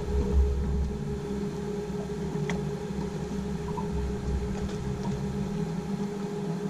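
Steady hum of a fishing boat's motor running at slow trolling speed, with a few faint knocks.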